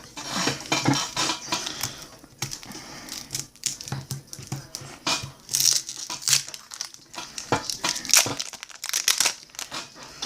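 Trading card pack wrappers crinkling and tearing, with cards being handled, in an irregular run of crackles and rustles.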